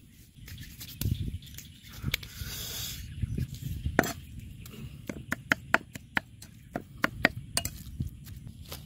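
Cleaver chopping a minced meat mixture on a thick wooden chopping block: a few scattered knocks, then a quick run of about ten sharp knocks in the second half.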